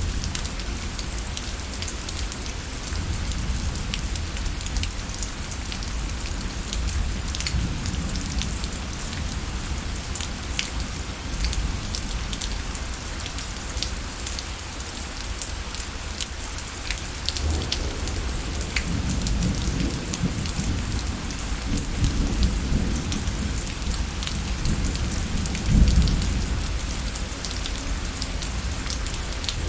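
Steady rain falling, with individual drops ticking sharply against a surface. A low rumble builds in the second half and peaks briefly near the end.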